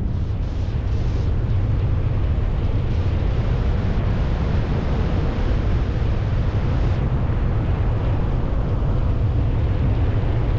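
Wind from the paraglider's airspeed rushing over the camera microphone: a steady low rumble with a hiss on top.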